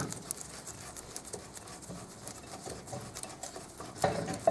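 Light clicks and scrapes of fingers working copper grease into the pad slots of a rear brake caliper carrier, with a louder knock about four seconds in.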